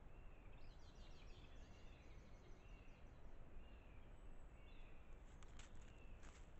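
Faint woodland birdsong over a low background rumble: small birds giving repeated short chirps, with a quick run of high notes about a second in. Near the end come a few short, sharp crackles as the roe deer steps through dry leaf litter.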